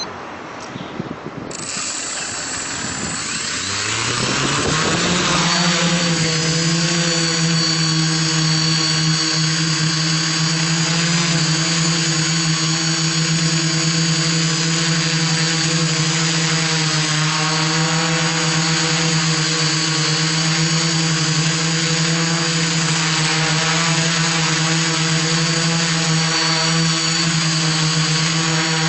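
iDEAFLY IFLY-4S quadcopter's motors and propellers spinning up, rising in pitch over about two seconds as it lifts off, then a steady, loud buzzing whine in flight.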